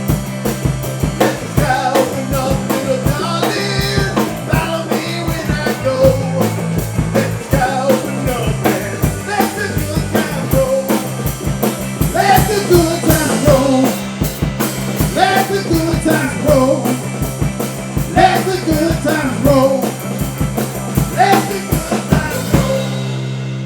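Rock and roll band playing with a driving drum-kit beat and singing. Near the end the drums stop and the band holds a final ringing chord.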